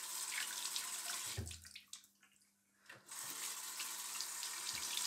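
Bathroom sink tap running as a silver coin is rinsed in the hand under the stream, water splashing into the basin. The flow cuts out for about a second, about two seconds in, then runs again.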